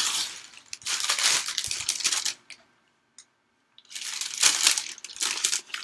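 Newspaper pages rustling and crinkling as they are handled and turned, in two stretches with a short quiet pause and a single small click between them.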